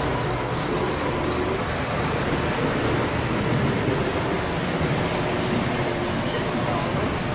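Model train running along its track, a steady running noise with faint steady tones.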